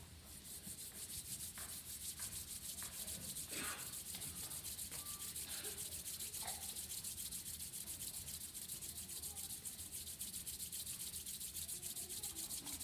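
Many people rubbing their palms together in unison, a steady pulsing hiss that swells over the first few seconds. It is the wind at the start of a body-percussion rainstorm.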